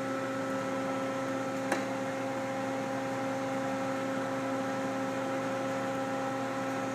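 1997 Mazak Quick Turn 20 CNC lathe running with its Mayfran chip conveyor belt switched on: a steady hum of several constant tones, with one light tick about two seconds in.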